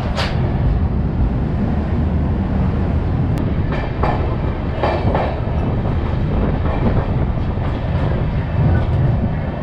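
Gatimaan Express train running on the track: a steady low rumble of wheels on rail, with a few short sharp clicks near the start and again about four to five seconds in.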